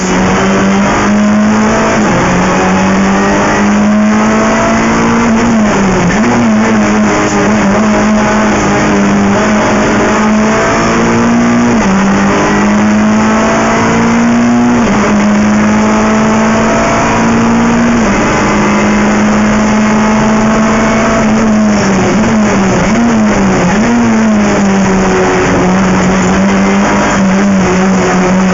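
Renault Clio III Cup race car's 2.0-litre four-cylinder engine heard from inside the cabin, running hard at high revs. Its pitch stays mostly steady, with a few small steps and brief wavers.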